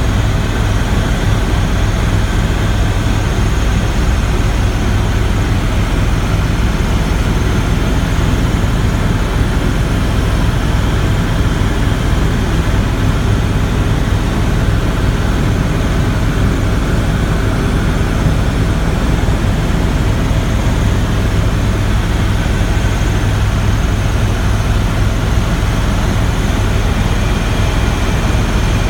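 Helicopter in flight: loud, steady engine and rotor noise with a strong low drone, unchanging throughout.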